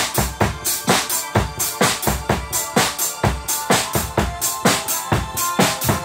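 Acoustic drum kit played along to an electronic dance track: a steady kick-drum beat at about two strokes a second, with snare and cymbal hits, over a sustained synth backing.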